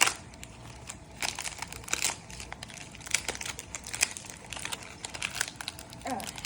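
Packaging being crinkled and rustled by hand, with a sharp crackle right at the start and irregular crackles after it.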